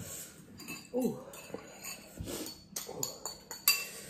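Spoons clinking and scraping against bowls while eating noodles: several sharp clinks, the loudest near the end.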